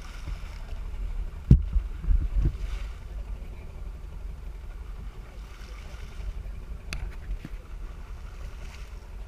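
Steady low rumble of wind and water on an action camera's microphone aboard a sportfishing boat at sea, with a few knocks, the loudest about a second and a half in.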